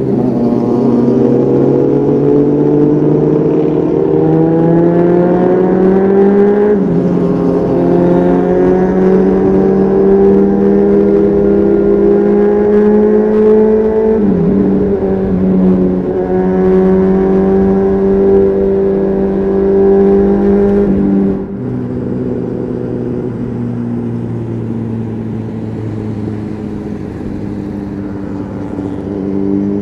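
Honda CBR600RR's inline-four engine through a Leo Vince aftermarket exhaust, heard from on board while riding. The revs climb twice with a drop in pitch between, as from gear changes, then hold high. About two-thirds through, the throttle closes, the engine goes quieter and the revs sink slowly before picking up again at the end.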